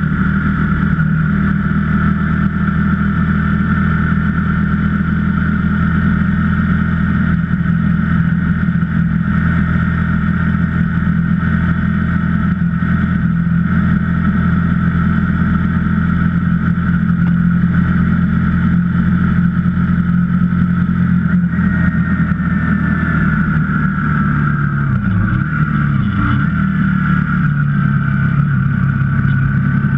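KTM 125 Duke's single-cylinder four-stroke engine running at a steady cruise. The note dips twice briefly about 25 seconds in, then settles at a lower pitch.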